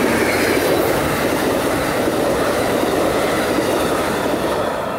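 Amtrak San Joaquin double-deck passenger cars passing close at speed: a steady, loud rush of steel wheels on rail that eases slightly near the end.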